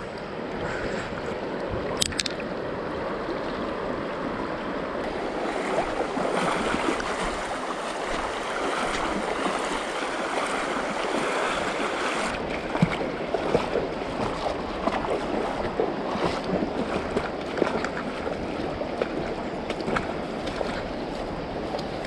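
A mountain river flowing: a steady rushing of water with a few brief ticks.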